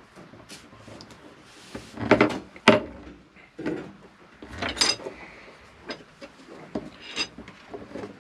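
Braided Dyneema rope rubbing and sliding over a wooden tabletop as it is handled and pulled through an eye splice, with a few sharp knocks on the wood. The loudest scraping and knocks come about two to three seconds in.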